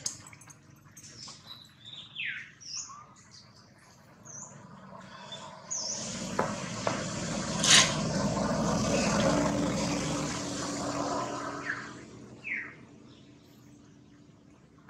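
Birds chirping in short descending calls while a motor vehicle passes, its noise swelling through the middle and fading away, with a low steady hum under it. A sharp snap is the loudest moment, as the vehicle noise builds.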